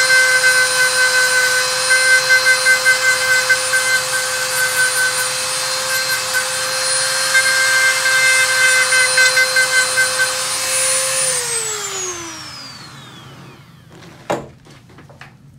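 Electric podiatry nail drill whirring steadily as it grinds down toenails. Its pitch slides down as it spins down about eleven seconds in, followed by a few sharp clicks near the end.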